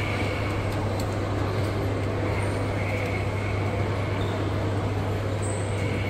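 Steady low hum under a constant wash of background noise, with a few faint clicks.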